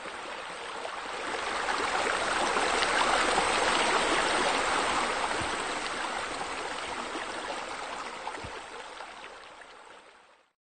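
Steady rushing of running water that swells over the first few seconds, then slowly fades away and stops just before the end.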